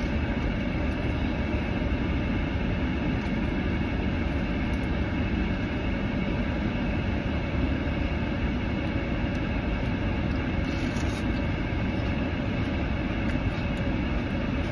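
Steady hum inside a car cabin with the vehicle running: engine idling and the climate fan blowing.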